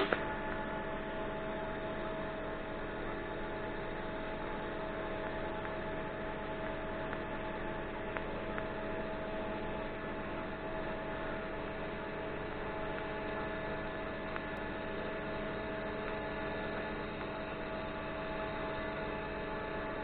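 TIG welding arc struck with a sharp click, then humming steadily with an even, unchanging tone while the weld is laid.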